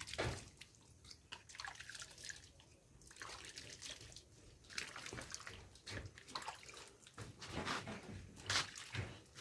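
Water splashing and dripping in irregular bursts as pieces of freshly cut sugarcane are washed by hand to remove soil.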